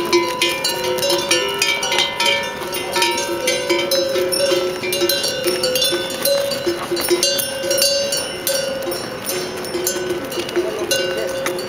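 Neck bells on a train of pack yaks clanging as the animals walk past: several bells ring at once, with two held ringing notes and many sharp clinks.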